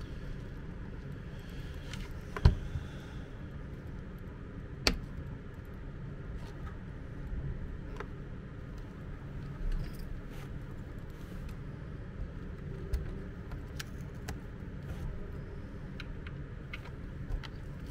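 Scattered clicks and knocks of a plastic compressor housing being handled, turned over on a rubber mat and unscrewed with a screwdriver, with the loudest knock about two and a half seconds in. A steady low hum runs underneath; the compressor itself is not running.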